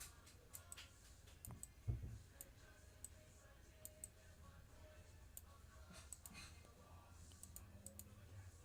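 Faint, scattered computer mouse clicks over a low room hum, with a slightly louder knock about two seconds in.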